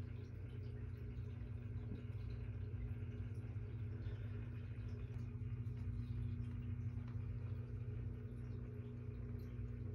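A steady low electrical hum, with a few even tones stacked above it, over a faint background rumble.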